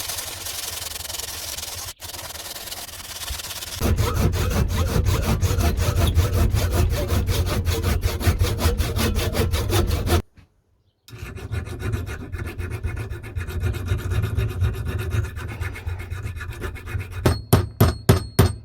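Sandpaper rubbing back and forth on a wooden hammer handle, sanding back hardened wood-glue-and-dust filler, in several short cut-together clips. Near the end, a run of regular sharp metallic taps, about four a second, with a ringing tone.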